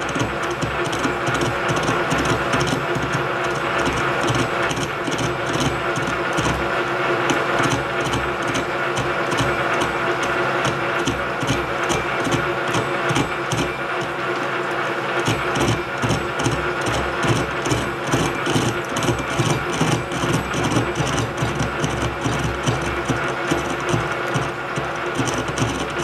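Metal lathe turning slowly with a steady gear-drive hum, while a high-speed-steel radius tool bit takes a light, dry interrupted cut across weld beads on the shaft, giving a fast, steady ticking. The cut is taking the high spots off the welds.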